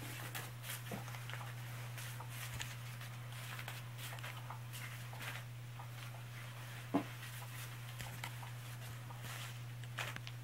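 SPORTPET Catch Me If You Can 2 cat toy running with a steady low motor hum, its wand rustling and tapping under the fabric cover as a cat paws at it. A sharper knock about seven seconds in.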